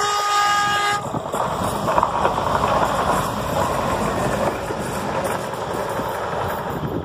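Renfe Alvia S120 electric train sounding its horn once, a steady blast of about a second, then passing close by with a loud, steady rushing noise of wheels and air.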